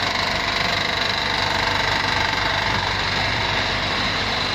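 Honda Accord 3.5-litre V6 engine idling with a steady, rapid knock. The owner suspects a valve problem or a connecting rod.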